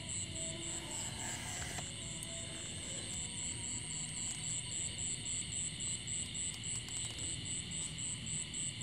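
Night insects chirping in a steady high pulse, about four chirps a second, over a continuous high insect drone.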